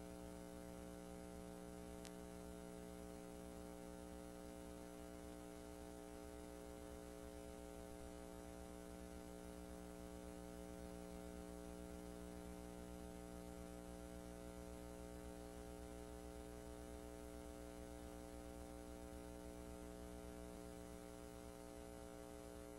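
Steady electrical mains hum over a faint hiss, unchanging throughout, with one faint tick about two seconds in.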